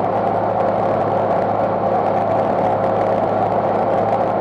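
Tractor engine running at a steady speed, a constant drone with a low hum underneath, as when pulling a drum mower across a meadow.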